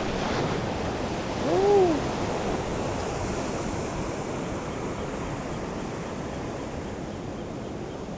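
Steady rush of ocean surf breaking.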